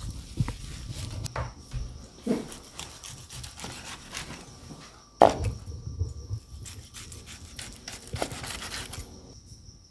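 Knife slicing through a grilled tomahawk steak on a plastic cutting board, with steel tongs holding the meat: irregular scrapes and knocks as the blade cuts and meets the board, the loudest knock about five seconds in.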